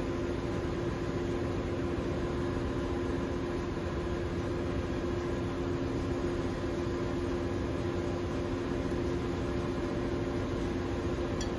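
Steady drone of running machinery in a ship's engine room: an even rushing noise with a constant low hum under it.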